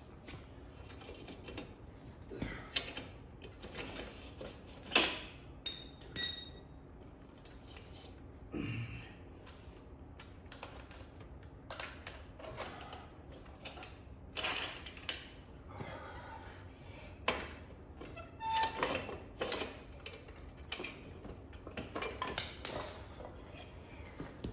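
Hand tools and metal motorcycle parts clinking and clanking irregularly during a wheel change, with the sharpest knock about five seconds in and a short metallic ring just after it.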